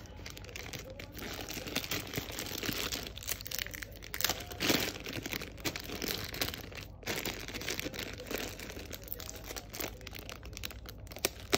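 Thin clear plastic bead bag crinkling and crackling as fingers pinch and pull at it to tear it open, with a louder crackle about halfway through.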